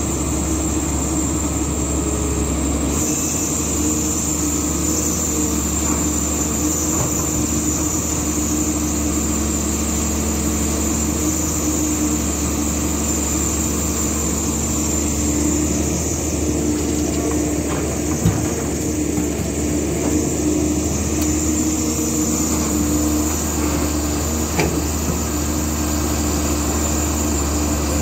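Caterpillar 320C excavator's diesel engine running steadily, heard at close range, with two short sharp knocks in the second half.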